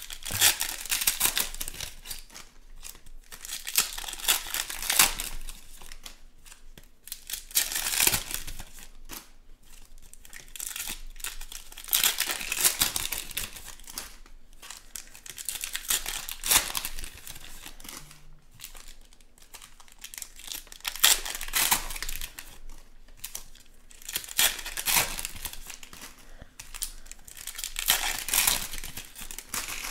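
Foil trading-card pack wrappers being torn open and crinkled by hand, in repeated bursts of crackling with short pauses between.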